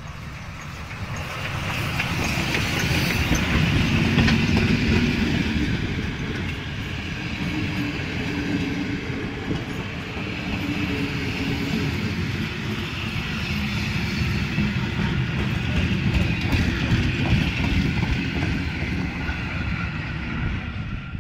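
Ty42-107 steam locomotive, a 2-10-0 freight engine, passing close by, followed by its train of vintage passenger carriages rolling past, steel wheels clattering on the track. The sound peaks a few seconds in as the locomotive goes by and stays loud as the coaches pass, easing off near the end.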